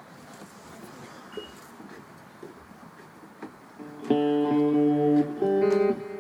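Guitar strummed twice, about four seconds in and again near the end, each chord ringing for about a second.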